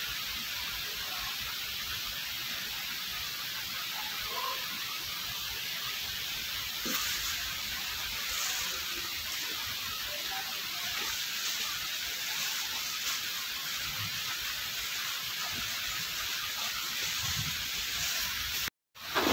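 Steady, even hiss of background noise, with a few faint soft knocks and handling sounds; the sound cuts out completely for a moment near the end.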